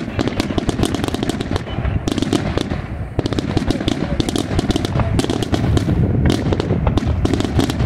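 Daytime aerial fireworks going off in a dense, rapid barrage of cracks and bangs, the reports overlapping over a continuous low rumble without a pause.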